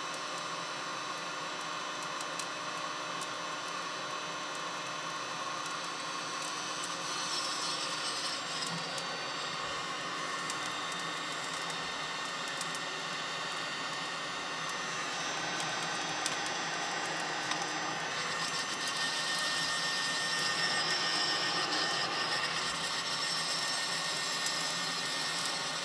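Electric hot-air charcoal lighter blowing into a bed of lump charcoal to light it, its fan motor running steadily and a little louder about two-thirds of the way through.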